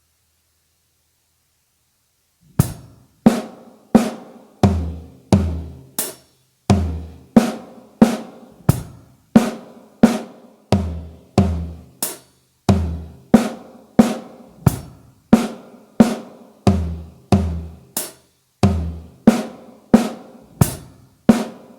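Drum kit played at a slow, even pace after a couple of seconds of silence: single strokes about three every two seconds, snare and toms with a bass drum under many of them, working through a nine-stroke fill pattern.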